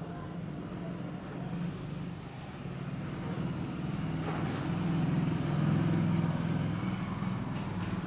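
A motor vehicle's engine running with a low, steady hum that grows louder to a peak about five to six seconds in and then eases off slightly.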